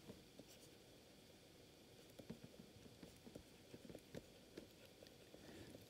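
Near silence with faint, scattered ticks of a stylus tapping and writing on a tablet screen.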